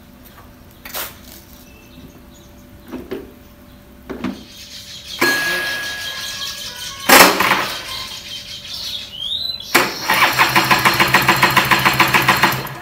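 Old Kinetic Honda scooter's two-stroke engine being turned over by its electric starter without catching: a short crank with a thin whine that ends in a sharp click, then a longer crank from about ten seconds in, with fast, even pulses that stop near the end. The owner takes the failure to start as due to the scooter standing unused for days with the choke off.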